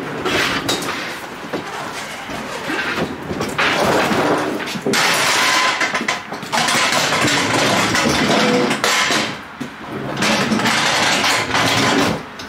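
Hand pallet jack hauling a loaded pallet across a truck trailer's wooden floor: its wheels rolling noisily in three long stretches, with short pauses between.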